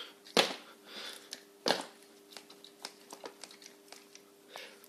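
Handling noise from a 1:10 RC crawler chassis being turned over by hand: two sharp knocks, about half a second and a second and a half in, then a run of small clicks and rattles from its parts and wiring.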